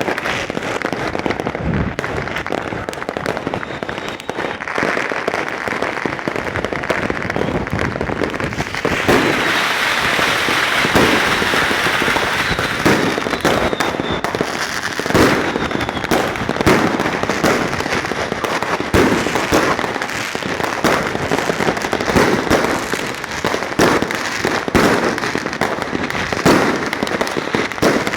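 Fireworks and firecrackers going off nonstop, many overlapping bangs and cracks. About a third of the way through, a denser, continuous crackle sets in, with heavier bangs among it.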